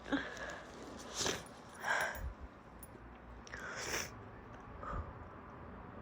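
A woman with a bad cold sniffling and snorting through a congested nose, with sharp breaths: about five short bursts, the loudest near the start and about two seconds in.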